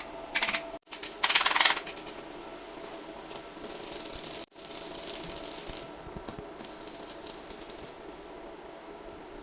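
Metal clattering: two short, loud bursts of rattling in the first two seconds, then a steady workshop hum with a few light clinks.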